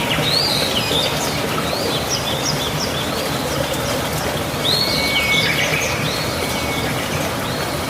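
A bird calling in short arched chirps in two bouts, the second with a held whistled note, over a steady hiss of falling rain.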